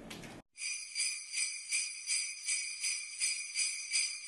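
Jingle bells (sleigh bells) shaken in a steady rhythm, about three shakes a second, starting about half a second in after a short cut to silence.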